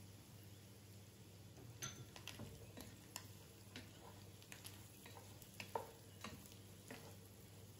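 Wooden spoon stirring and tossing sautéing sausage, carrot and bell pepper strips in a metal pot: faint, irregular scrapes and clicks starting about two seconds in, over a steady low hum.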